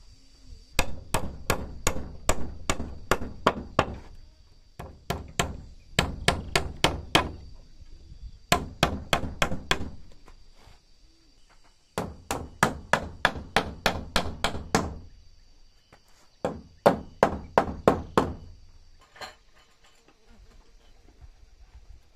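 Hammer driving nails into wooden railing posts: quick runs of sharp strikes, about three to four a second, with short pauses between runs and a single strike near the end. A faint steady high insect buzz runs underneath.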